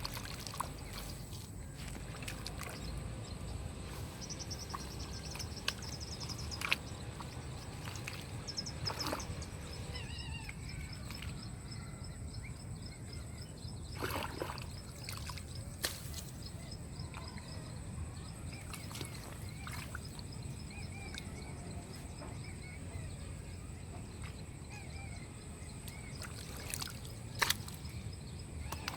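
Outdoor water ambience: a steady low rush with scattered splashes and knocks, and small high chirps and trills here and there.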